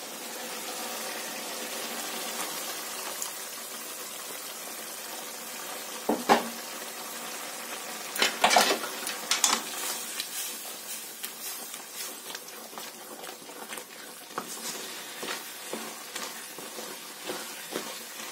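A pan of bean-and-onion masala sizzling on the stove as gram-flour paste is stirred in with a wooden spatula, with a few louder knocks and scrapes against the metal pan around the middle.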